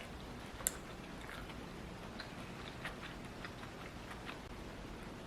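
Quiet eating sounds: faint chewing with small scattered clicks, and one sharper click under a second in.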